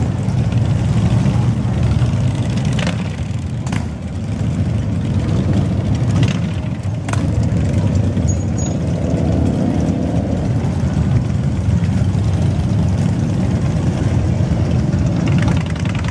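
Large touring motorcycles and a motorcycle trike cruising slowly past one after another, a continuous low engine sound with no break.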